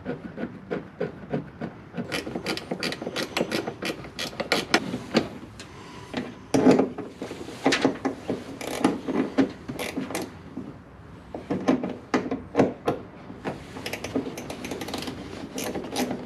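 Ratchet wrench clicking in quick, uneven runs as a bolt is turned down until snug.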